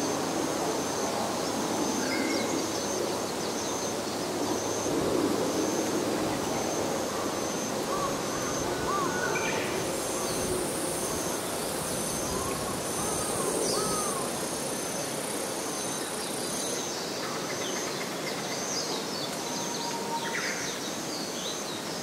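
Summer evening outdoor ambience beside a woodland pond: a steady low background rumble under a thin, continuous high insect tone. A higher insect buzz comes in about ten seconds in and stops about seven seconds later, and birds give scattered short chirps throughout.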